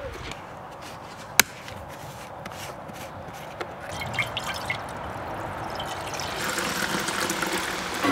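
Liquid poured into a stove's rusty metal fuel reservoir, dripping and trickling at first, then a fuller, louder pour in the second half. A single sharp click about a second and a half in.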